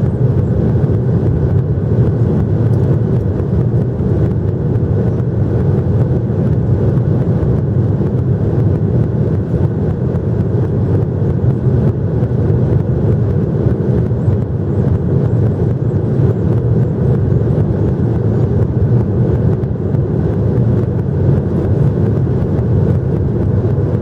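Steady low rumble of jet engines and airflow inside the cabin of a Boeing 737-800.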